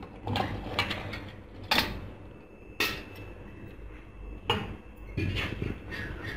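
A steel slotted spoon and raw chicken pieces knocking and scraping against a kadhai: a few separate clatters, then a quick run of them near the end.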